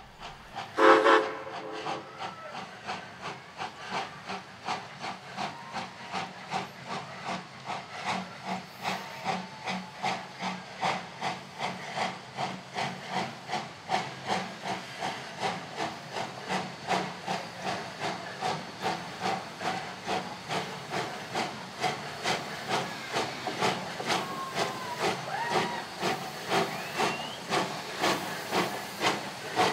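Steam locomotive working slowly, its exhaust chuffing in an even beat of about two a second over a steady hiss of steam, the beats growing a little louder as it comes closer. A short, loud blast about a second in.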